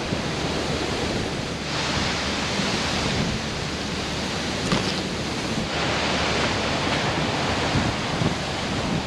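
Gusty wind buffeting the microphone: a steady low rumble under a hiss that swells twice, with leafy brush rustling as it is pushed through.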